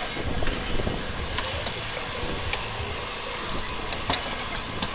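Steady machine hum with a few sharp metal clicks and creaks as a hydraulic rescue tool is worked into a car's door.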